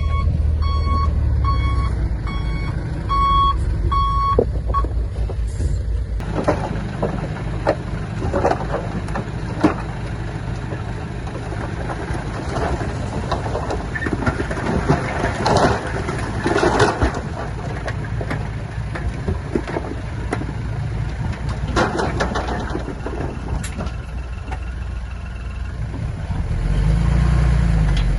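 A heavy diesel earthmoving machine's backup alarm beeps evenly, about one and a half beeps a second, over its engine for the first few seconds. Then the diesel engine runs on with irregular metal clanks and scrapes, and the engine noise grows louder near the end.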